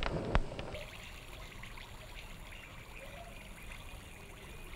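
Two sharp knocks, then water trickling steadily.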